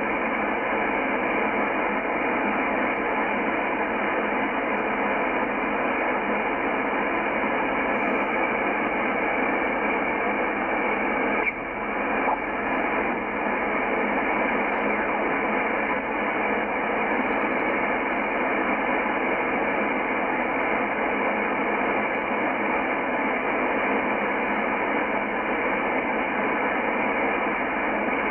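Shortwave receiver static: a Yaesu FTdx10 in upper sideband giving a steady, thin hiss of band noise as it is tuned across an empty stretch of the 17 MHz band. The hiss dips briefly about eleven seconds in.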